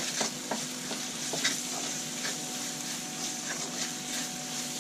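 Onion and spice masala frying in oil in a steel kadai, sizzling steadily while a wooden spatula stirs it round, with frequent short scrapes and taps of the spatula against the pan.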